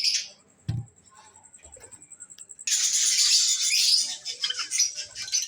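Small caged birds chirping, with a dense burst of chatter in the second half and a single low thump a little under a second in.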